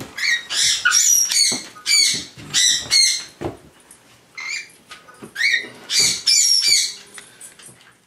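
Pet parrot squawking in a rapid series of short, shrill calls, about a dozen in all, with a brief lull around the middle.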